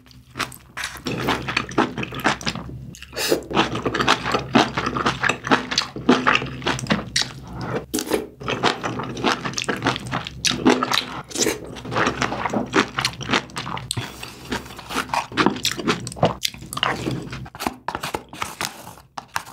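Close-miked chewing and mouth sounds of a person eating braised kimchi stew with pork: a dense, irregular run of quick wet clicks and smacks.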